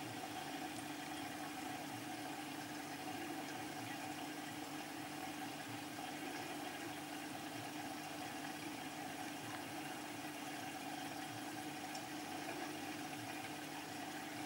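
Steady hum of running aquarium equipment, a filter or air pump, with an even hiss behind it.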